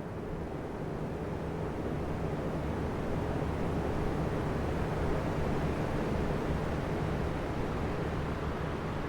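Three oscillating electric fans running together, a steady low whoosh of moving air with a faint motor hum. The level swells slowly and eases off again as the fans sweep toward and away from the microphone.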